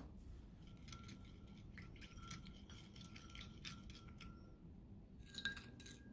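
Wooden spoon stirring sauce in a small ceramic bowl, faintly scraping and clicking against the bowl's sides in a quick rhythm. A few louder ringing clinks of spoon on ceramic come near the end.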